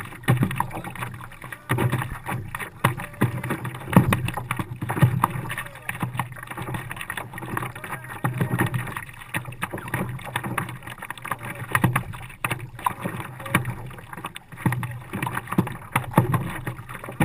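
Water lapping and gurgling against a Nidecker stand-up paddleboard as it is paddled, with irregular splashes from the paddle blade every second or two.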